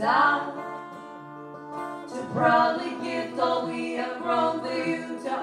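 Folk duo performing live: two women's voices singing in harmony over acoustic guitar. A long held note comes first, then a new sung line of shorter notes starts about two seconds in.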